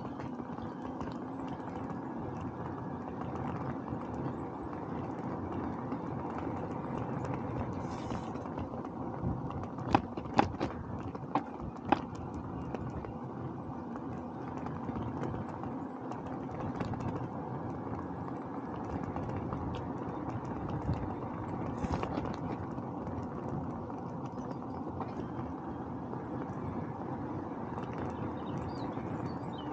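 Steady rolling and wind noise of a bicycle ride on a road, with four sharp clicks about ten to twelve seconds in.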